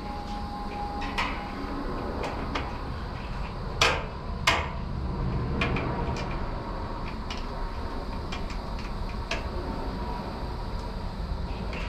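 Metal clicks and knocks from a steel drum fan and its tubular stand being handled during assembly, with two louder knocks about four seconds in, over a steady low rumble.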